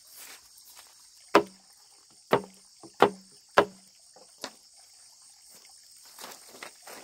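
Four sharp strikes of a tool into wood or bamboo, the first three about a second apart, then a fainter knock; each strike has a brief low ring. A steady high drone of insects runs underneath.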